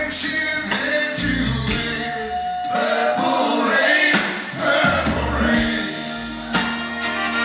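Live rock band playing, with male singing over drums and guitars.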